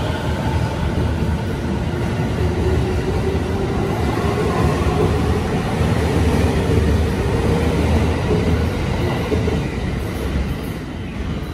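JR 209 series electric commuter train running along the platform, a steady rush of wheel and running noise with a faint steady whine, fading near the end as the last car clears.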